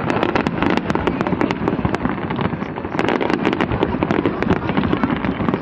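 Fireworks going off in a dense, continuous barrage: many sharp bangs and pops over a steady crackle, with no pause.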